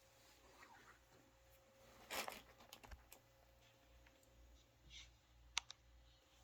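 Near silence: faint room tone with a steady hum, one brief soft rush of noise about two seconds in, and a few faint clicks.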